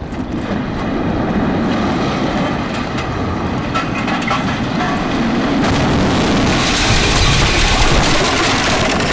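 Two concrete power-plant smokestacks toppling after explosive demolition charges: a long, loud rumble with crackling debris, growing louder and harsher about six seconds in as the stacks hit the ground and break up.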